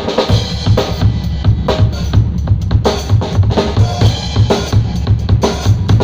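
Drum kit playing a steady groove: bass-drum beats about four a second, with sharp snare hits roughly once a second.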